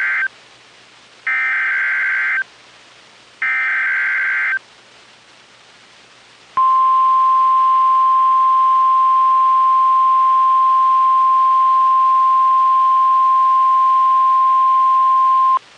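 NOAA Weather Radio emergency alert: the end of one SAME digital header burst and then two more, each about a second of harsh, buzzy data screech. About two seconds later comes the steady single-pitch 1050 Hz weather alert tone, held for about nine seconds and cutting off just before the end. The header and tone open the broadcast of a tornado warning.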